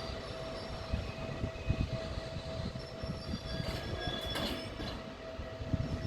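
Train at a station: rumbling wheels with irregular thumps and short high squeals, over a steady hum.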